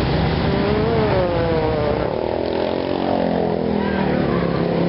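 Street traffic at an intersection: motorcycle engines running and passing, their pitch rising and falling, with one engine note dropping slowly over the last couple of seconds as it goes by.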